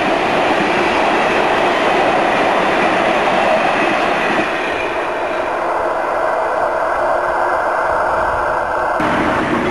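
A long rake of railway tank wagons rolling past close by, a steady rumble and rattle of wheels on the rails that softens as the last wagons draw away. About nine seconds in the sound changes abruptly to a different, fuller rumble.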